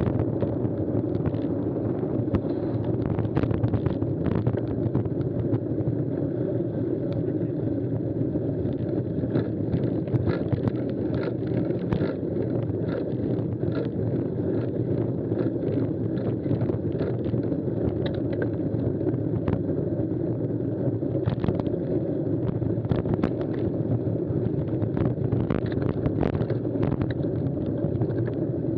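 Mountain bike rolling along a rough, wet woodland track: a steady rumble of tyres and frame, broken by frequent short clicks and rattles.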